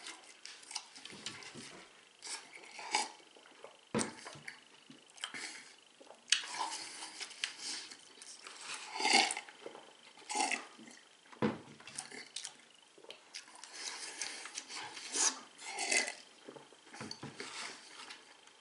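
A man speed-eating quark-apple cake: irregular chewing and mouth sounds, with clicks and knocks from a foil tray and a glass water jug, and drinking from the jug about ten seconds in.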